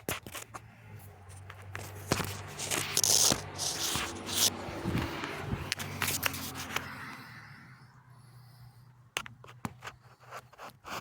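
Handling noise of a phone being pushed up into a roof space: scraping, rubbing and knocking against the phone's microphone, busiest for the first seven seconds. A few sharp clicks follow near the end.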